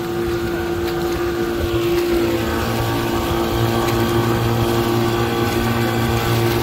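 Yamaha Enduro 25 hp two-stroke outboard motor running steadily at speed under the rush of the boat's wake. It is running smoothly.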